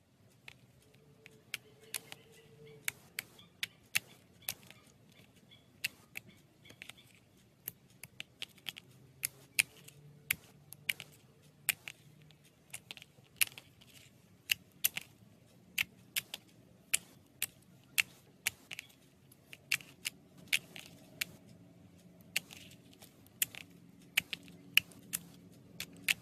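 Slime being handled, giving irregular sharp clicking pops, about two or three a second.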